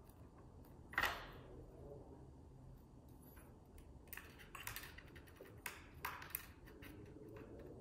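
Sculpting clay and tools being handled on a work surface: a sharp clack with a short ring about a second in, then a run of soft scraping and rustling sounds as clay is worked on.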